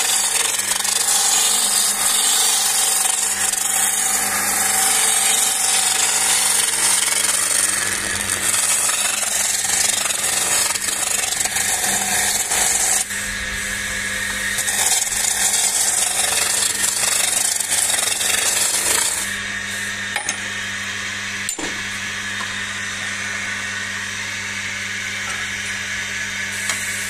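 Wood lathe running with a steady motor hum while a chisel cuts along a spinning ash walking-stick blank, a rushing shaving noise that comes in long passes with brief breaks. For the last several seconds the cutting eases off and mostly the lathe hum is left, with a couple of sharp clicks.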